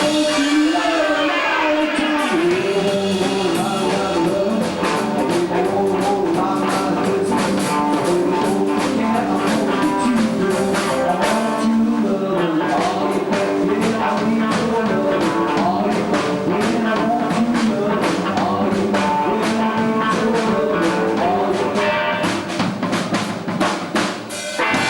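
A live band playing guitar-led music over a drum kit with rimshot hits, in a blues or rock-and-roll style.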